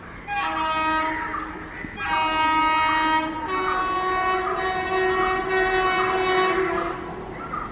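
Indian Railways WAP7 electric locomotive's horn sounding as it approaches: three back-to-back notes, each at a different pitch, the last held for about three seconds.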